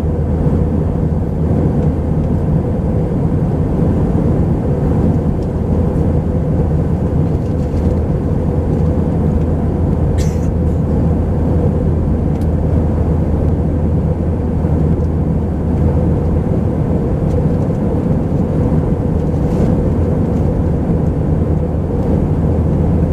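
Steady drone inside the cabin of an Airbus A319-131 in flight: its IAE V2500 jet engines and the airflow give a constant low hum with no change in pitch. A single short click about ten seconds in.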